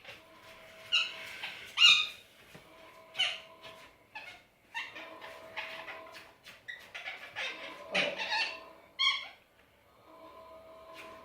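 Indian ringneck parakeet chattering while dozing: a string of short chirps and mumbled talking sounds, loudest about two seconds in and again around eight seconds. A faint steady hum runs underneath.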